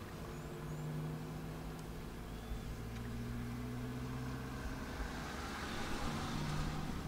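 A vehicle engine idling steadily with a low hum that shifts slightly in pitch now and then, with a few faint bird chirps.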